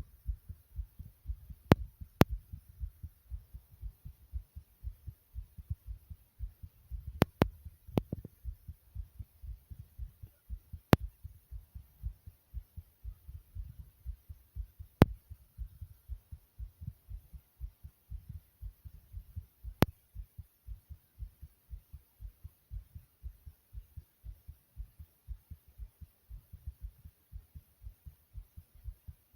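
A fast human heartbeat recorded close up: a quick, continuous train of low thuds, broken by a few sharp clicks.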